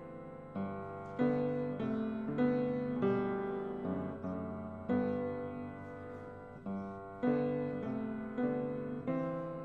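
Piano playing slow, quiet chords. Each chord is struck and left to fade, a new one about every half second to second.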